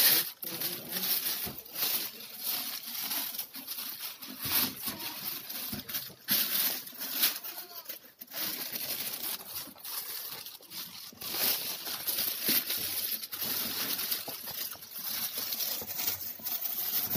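Thin plastic bag rustling and crinkling in irregular bursts as it is pulled and torn open off a cardboard box, with the cardboard rubbing against it.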